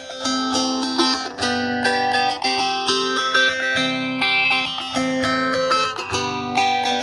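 Background music: a guitar plucking a melody, with notes struck one after another at a steady pace.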